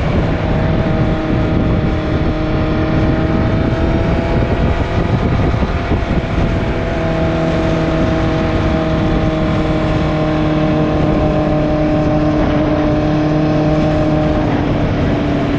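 Motorcycle engine running under way, its exhaust note fairly steady with wind rush. The note shifts about seven seconds in and falls slightly near the end. The exhaust has a leak.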